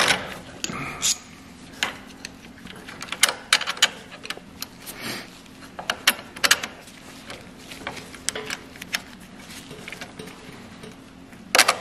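Irregular sharp metallic clicks and clinks of small hardware being handled: misalignment spacers and a bolt being slid into a sway bar link's rod end.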